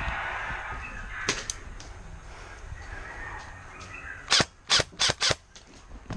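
Airsoft gun firing four quick shots, sharp snaps within about a second, a little past the middle.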